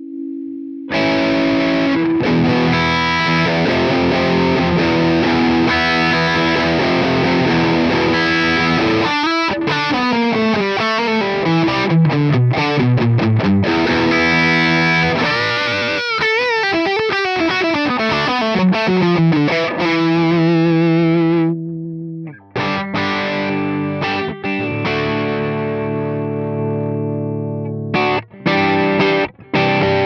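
Electric guitar played through the Sonicake Matribox II Pro's Plexi Dist model, a Marshall Guv'nor emulation, recorded through a Celestion cabinet IR. At high gain it plays distorted chords and riffs, with notes sliding down in pitch and bent notes. About 22 seconds in, the gain is turned far down, and the tone turns to a lighter crunch with short breaks near the end.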